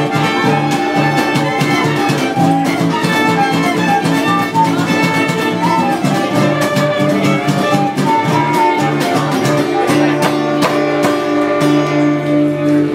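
Live folk instrumental passage: a fiddle playing a melody over a steadily strummed acoustic guitar, with no singing.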